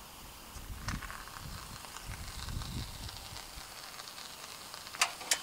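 Expanding polyurethane foam hissing faintly from a foam gun as it is squeezed into the gap, with two short sharp clicks near the end.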